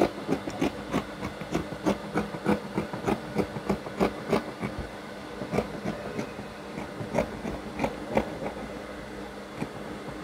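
A pair of scissors snipping through fabric in a run of short crisp cuts, about three a second at first, spacing out in the second half and stopping near the end.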